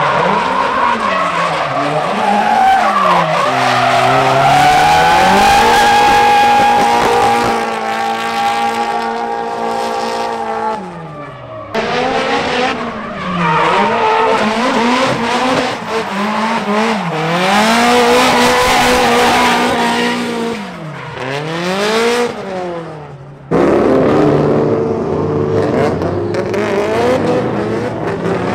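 Drift cars' engines revving up and down hard while sliding, with tyre squeal over the top. There are abrupt changes about twelve seconds in and again near the end, where the sound cuts from one car to another.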